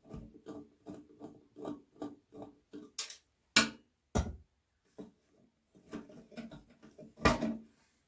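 Hands working inside a computer tower case, freeing its cables: a run of short scrapes and rattles, with four sharp knocks against the case, the loudest about three and a half and seven seconds in.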